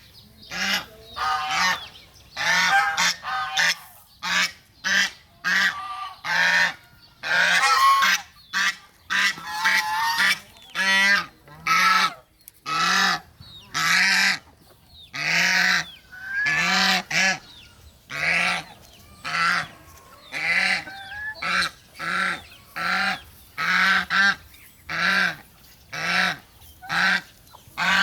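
Farm ducks quacking: loud, harsh calls repeated about once a second, some running into each other.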